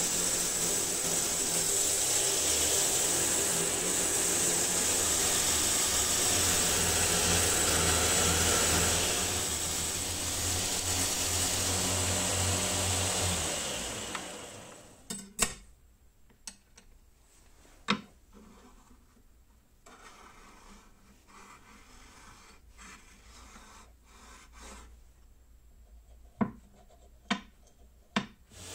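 A 2x48 belt grinder running while a wooden knife-handle block is sanded against its belt: a steady grinding hiss over the motor's hum that dies away about 14 seconds in. After that there are a few sharp wooden knocks and light taps as the block is handled.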